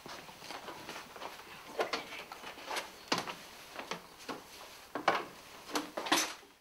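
Footsteps and knocks on a wooden staircase: irregular short thumps about once a second.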